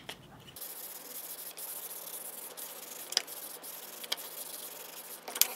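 A thin wooden strip rubbed by hand with a folded pad: a steady, soft, scratchy hiss with a few light clicks.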